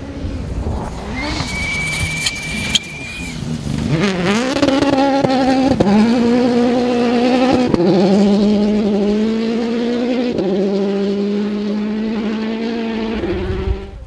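A 2017 World Rally Car's 1.6-litre turbocharged four-cylinder engine at full throttle on a gravel stage: the note climbs about four seconds in, then holds high and loud with four sharp steps in pitch at the gear changes. A brief steady high whistle sounds before the engine comes up.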